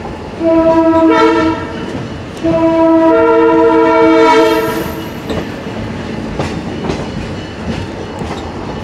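A diesel locomotive's air horn sounds a multi-note chord in two blasts, a short one and then a longer one, the horn signal called for at a whistle sign. After the blasts the wheels clatter steadily along the rails.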